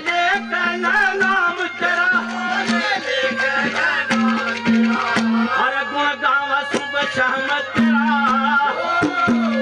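Live folk song: a man singing through microphones with a steady hand-drum accompaniment.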